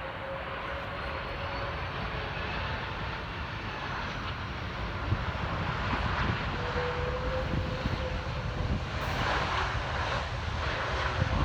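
Airplane engines on landing approach, a steady rumble with a faint whine that grows louder as the aircraft comes closer.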